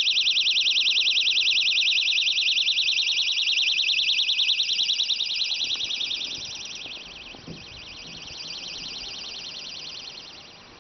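Handheld personal panic alarm shrieking with a fast, high warble, set off as its pin is pulled. From about six seconds in it becomes muffled in steps as it is lowered into a Rockwool-lined bucket and the lid closes over it, though it keeps sounding.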